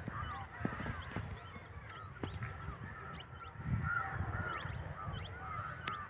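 Many birds calling together in a chorus of short, repeated chirps, over a low uneven rumble that swells about four seconds in.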